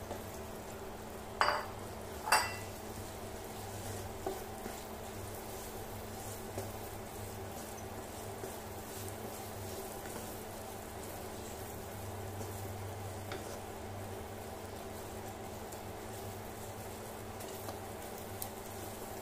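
Wooden spatula stirring and scraping scrambled egg through baked beans in a nonstick pan, over a steady hum from the induction cooktop, with two sharp knocks about a second and a half and two and a half seconds in.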